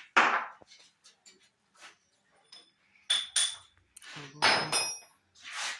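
Irregular metallic knocks and clinks, some ringing briefly, as metal tools or parts are handled and set down against each other.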